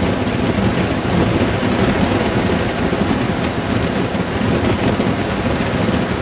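Steady wind rush over the microphone of a Honda Gold Wing GL1800 motorcycle cruising at road speed, with the bike's engine and road noise underneath.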